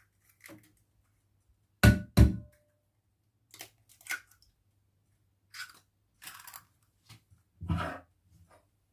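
Eggs being cracked against the rim of a bowl: two sharp knocks about two seconds in, the first leaving a brief ring from the bowl, then soft clicks of shell and another knock near the end.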